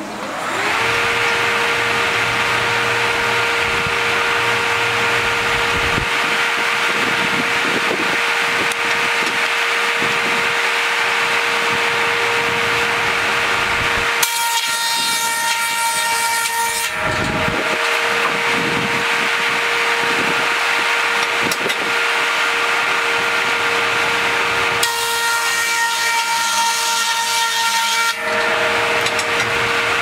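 Sawmill breast bench's large circular saw blade coming up to speed with a rising whine and then running with a steady whine. It cuts Douglas fir flitches twice, about halfway through and again near the end, each cut a loud burst of sawing lasting about three seconds.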